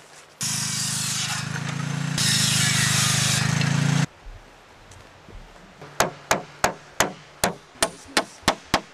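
A power saw runs for about four seconds, getting louder about halfway through. Then a hammer drives nails into a wooden sign with about ten sharp strikes, three to four a second.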